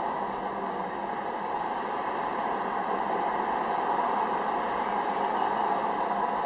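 Steady hiss of car and road traffic noise, heard from a car moving slowly through dense city traffic.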